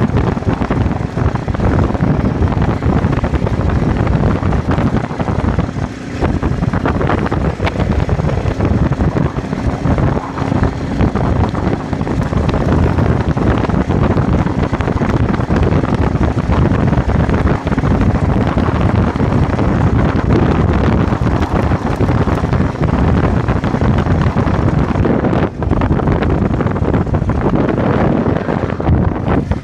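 Sidecar motorcycle running under way, with heavy wind rushing over the microphone. The roar is loud and steady throughout.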